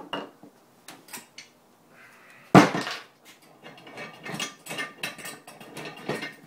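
A small portable vise is set down on a wooden tabletop with one heavy knock about two and a half seconds in, after a few light clicks of small parts being put down. A run of light clattering and rattling follows as the vise is handled.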